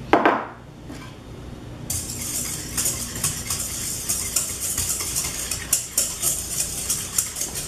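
A whisk beating a liquid egg, maple syrup and milk mixture in a stainless steel mixing bowl: rapid scraping and clinking of the whisk against the metal bowl, starting about two seconds in. A short loud sound comes at the very start.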